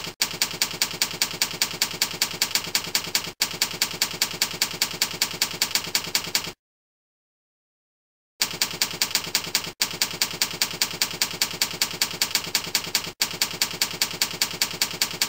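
Typewriter sound effect from a slide's typewriter text animation: rapid, even key clacks at about six a second. They stop for about two seconds in the middle, then resume.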